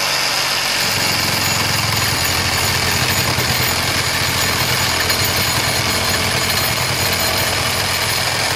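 Batavia 18 V cordless reciprocating saw running steadily while sawing through a thick wooden plank clamped in a vise. The sound of the blade in the wood grows heavier about a second in.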